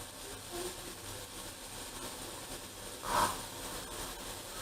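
Faint steady hiss of a pot of almond tea (almond powder in milk) heating on the stove as it nears the boil, with bubbles forming at the edges. A short louder noise comes about three seconds in.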